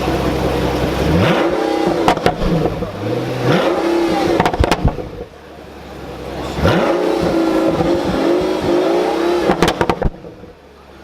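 Pagani Huayra's twin-turbo V12 revved three times, each rev followed by a quick run of pops and crackles from the exhaust as it falls back.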